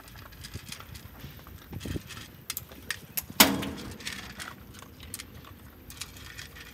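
A golden retriever eating dry kibble from a small bowl: a run of small crunches and clicks, with one loud clack about three and a half seconds in.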